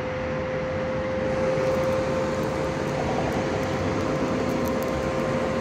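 ZaBot pizza vending machine running: a steady machine hum with one constant mid-pitched tone, like its fans and oven working.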